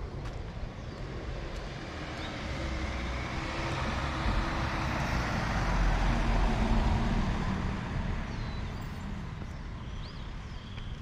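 A road vehicle drives past. Its engine rumble and tyre noise swell to a peak about six seconds in, then fade away.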